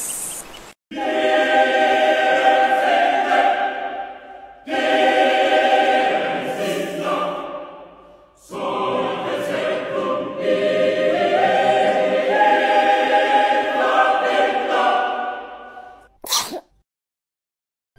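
A chorus of voices singing long held chords in three phrases, with brief breaks between them, stopping a couple of seconds before the end.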